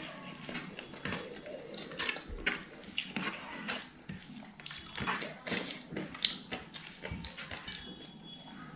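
Wet squishing and soft clicks of rice being mixed and squeezed by hand on a steel plate, mixed with close-up mouth chewing and smacking sounds, in irregular little bursts.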